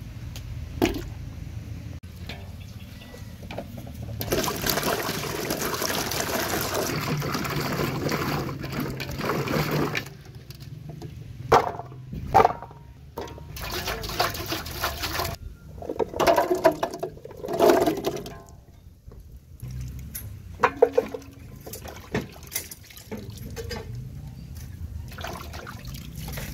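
Water poured from a height into a large metal basin, then splashes and sharp knocks as peeled sweet potato pieces are washed by hand over the basin.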